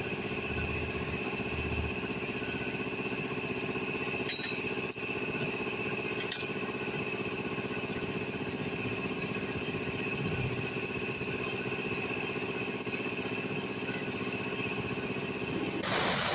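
Honda City's engine running steadily at idle. Near the end, a loud hiss cuts in suddenly.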